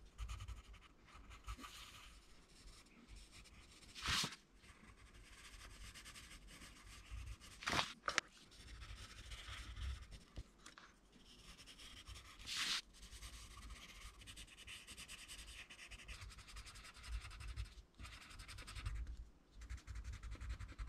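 Coloured pencil scratching softly on paper as it colours in small areas over a dye-and-oil-pastel print, with a few short, louder strokes.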